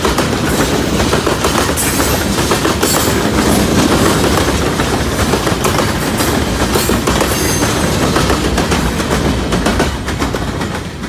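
New York, Susquehanna & Western freight cars rolling past at close range, steel wheels clacking rapidly over the rail joints over a dense rumble. The noise falls away near the end as the last car goes by.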